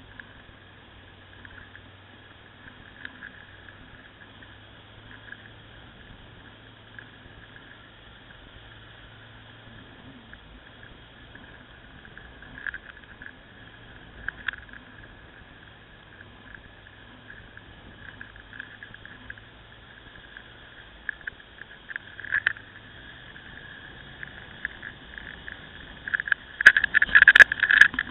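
Ducati Scrambler motorcycle running, heard muffled and steady. Scattered knocks come and go, and a burst of loud crackling knocks arrives in the last two seconds.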